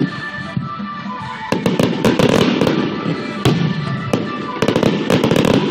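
Aerial fireworks shells bursting, with clusters of sharp cracks and crackling volleys that start about a second and a half in and come thickest near the end, over steady music.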